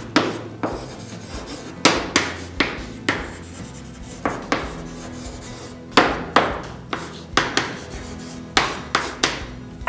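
Chalk writing on a blackboard: an irregular run of sharp taps and short scrapes as letters are stroked on.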